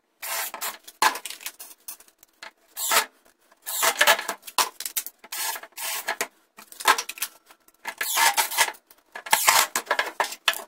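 Cordless drill run in short repeated bursts, stopping and starting, as it bores pilot holes and drives screws into a wooden block.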